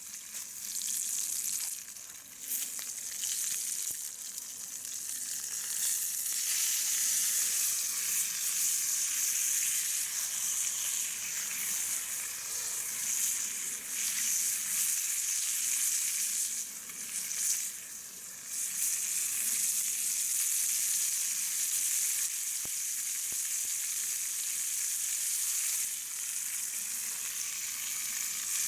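Food sizzling and frying in a pan over a campfire, a steady hiss that briefly drops twice.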